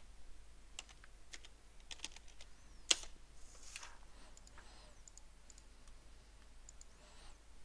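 Faint computer keyboard keystrokes and mouse clicks, scattered and irregular, with one sharper click about three seconds in.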